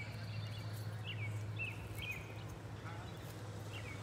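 A bird chirping repeatedly, short sweeping notes about twice a second, over a steady low hum.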